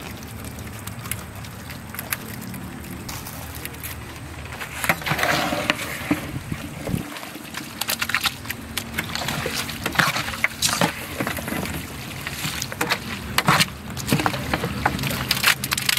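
Goat meat with spices and salt being mixed in a cooking pot: irregular scraping and knocking against the vessel, busier from about five seconds in, over a steady low background noise.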